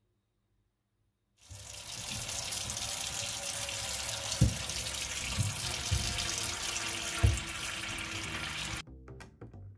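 Kitchen tap running into a stainless-steel sink while lemons are washed, with four dull thuds as lemons are set down in the metal basin. The water cuts off suddenly near the end.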